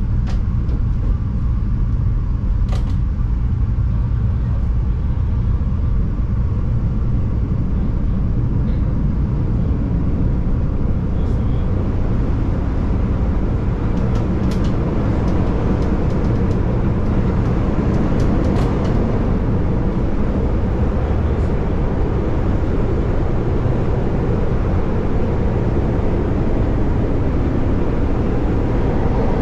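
CTA Yellow Line rapid-transit train (5000-series cars) running on the line, heard from inside the car at the front window: a steady rumble of motors and wheels on rail, with the rolling noise growing stronger about a third of the way in and a few sharp clicks near the middle.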